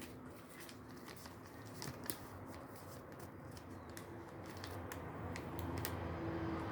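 Quiet handling sounds: scattered light clicks and rustling as the phone's packaging and accessories are put away.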